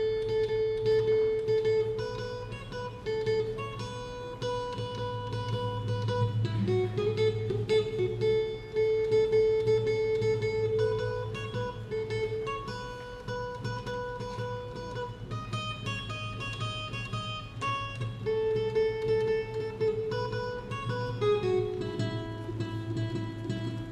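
Solo acoustic guitar played as an instrumental, picking a melody of held single notes.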